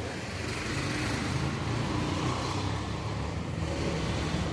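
Steady rumble of road traffic passing outside, with a low hum and no distinct tool clicks.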